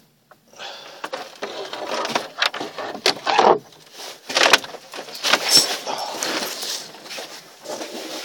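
Rustling, scraping and knocking from handling a freshly caught pike and unhooking it with pliers, with several sharp clacks.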